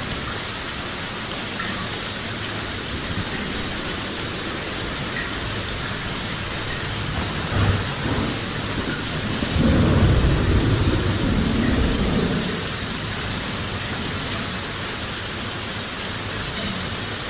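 Steady rain falling. About halfway through, a low rumble of thunder swells up for a few seconds and fades back into the rain.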